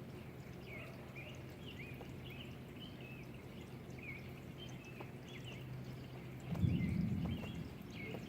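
Birds chirping in short, repeated notes over a steady low hum, with a brief low rumble about six and a half seconds in.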